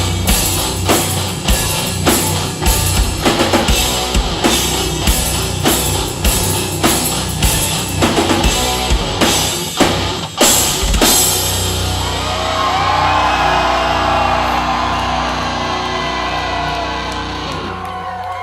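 Live rock band playing the instrumental close of a song, the drum kit pounding a steady beat, with bass and electric guitars. About ten seconds in it ends on a final crashing hit. The guitars ring out after it while the crowd begins cheering and whooping.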